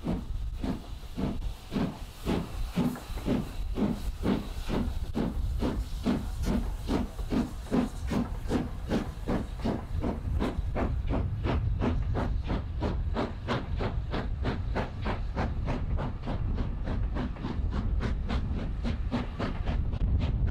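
Southern Railway N15 King Arthur class 4-6-0 No. 777 Sir Lamiel pulling away with a train of coaches: sharp, regular exhaust beats from its chimney that quicken steadily as it gathers speed. Open cylinder drain cocks hiss steam under the beats, and the hiss fades about halfway through.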